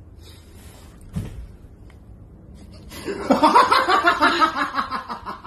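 A short soft thump about a second in, then a person laughing hard and in quick bursts for the last two and a half seconds.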